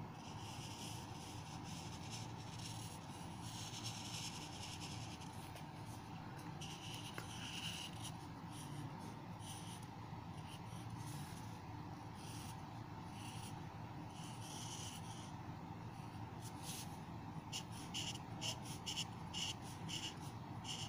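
Felt-tip marker scratching across paper in a series of short drawing strokes, quicker and choppier near the end, over a steady low hum.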